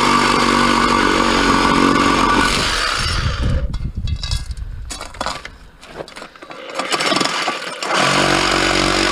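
Reciprocating saw (Sawzall) cutting through the rivets that hold a handle on a piece of scrap aluminium. It runs loud and steady, turns rough and uneven for several seconds in the middle, then runs steady again near the end.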